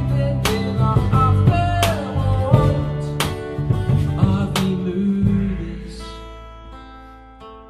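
Live band music: strummed acoustic guitar and electric guitar with a singing voice, and a large metal drum struck with mallets about every second and a half. About five seconds in the playing stops and a last chord rings out, fading away.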